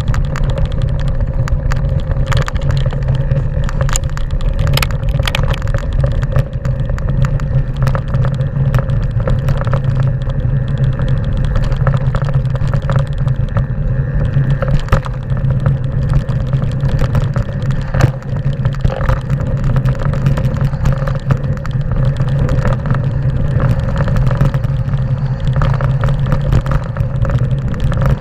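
Mountain bike rolling fast down a loose stony trail: a steady low rumble of tyres and frame vibration, with frequent sharp clatters and knocks as it rattles over the stones.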